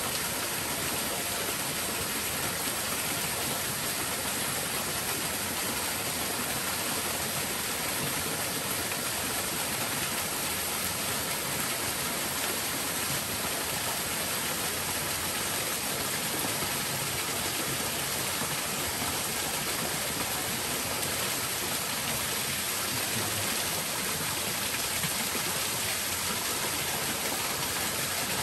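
A small waterfall pouring steadily over boulders and splashing into a shallow rock pool.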